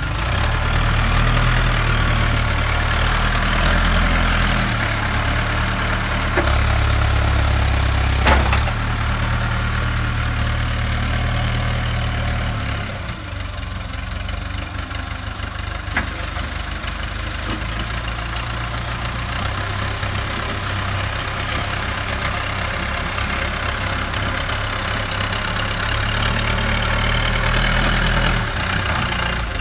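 JCB 3CX backhoe loader's diesel engine running as the machine works, pushing and spreading soil with its front bucket; the engine note rises and falls with the load. A sharp knock sounds about eight seconds in, and a smaller one about sixteen seconds in.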